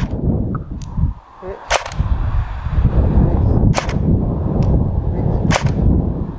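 L86 LSW airsoft electric gun firing single shots of 0.25 g BBs: one sharp crack right at the start, then three more roughly two seconds apart. A heavy low rumble of wind on the microphone runs underneath.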